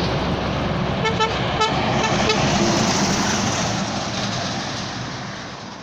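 Heavy truck's diesel engine running hard with a steady rumble. A few short horn toots come about a second in. The sound fades out near the end.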